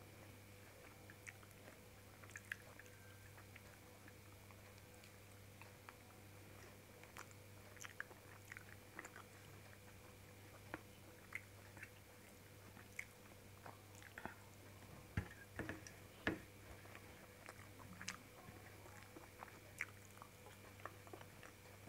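Quiet chewing and wet mouth clicks of a person eating soft food by hand, with scattered small clicks that are strongest about fifteen seconds in. A faint steady hum runs underneath.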